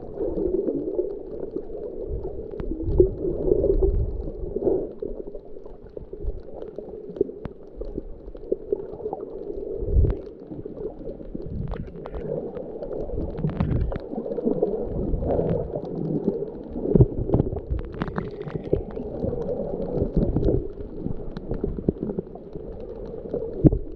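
Muffled underwater sound picked up by a GoPro in its waterproof housing while snorkeling: low, uneven rumbling and gurgling of water moving around the case, with scattered sharp clicks.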